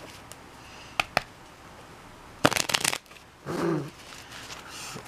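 A deck of playing cards being shuffled by hand: two light taps about a second in, then the quick flutter of a riffle shuffle about halfway through.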